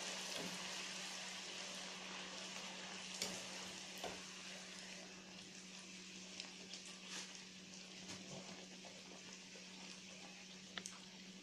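A spinach puri deep-frying in hot oil in a kadhai: a steady sizzle that slowly dies down. A few sharp clicks come from the wire skimmer against the pan, around three and four seconds in and again near the end.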